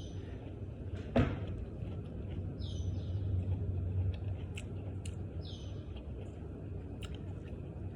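A small bird chirps twice, each call a short falling high note, over a steady low hum. There is a sharp knock about a second in and a few faint clicks.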